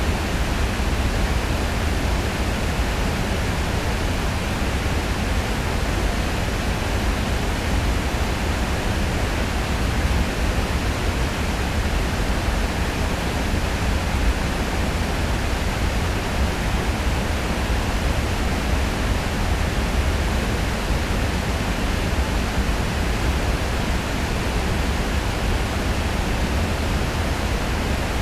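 Heavy flow of river water pouring over a weir: a loud, steady, unbroken rush of falling water, heaviest in the deep low end.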